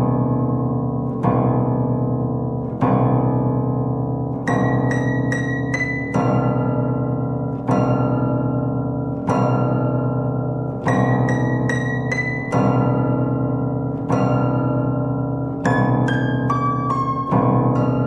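Old, out-of-tune Cambridge upright piano played slowly. A low chord is struck about every second and a half and left ringing, and small groups of high notes come in three times over the top.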